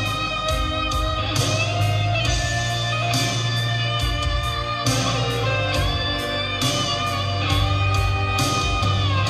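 Rock power ballad played through a car's two-way speaker system: an electric guitar melody with bent notes over sustained bass notes and drum hits.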